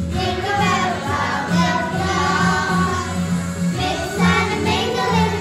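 A class of children singing a Christmas song together over a backing track with a steady beat.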